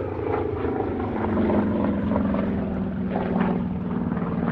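SAAB B17's radial piston engine and propeller droning during its display flight. The engine note drops in pitch about a second in, then holds steady.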